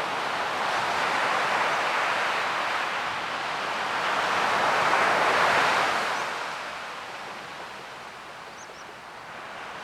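Ocean waves washing in: a rushing surge that builds to a peak about five seconds in, then dies away before the next wave starts to rise near the end.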